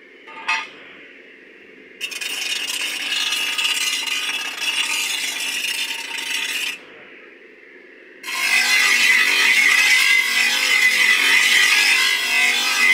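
Electric bench grinder sharpening the steel blade of a chaff cutter: a metal clink of a blade about half a second in, then two grinding passes, one from about two seconds in for about five seconds and a louder, hissier one from about eight seconds on, with the grinder's motor humming between them.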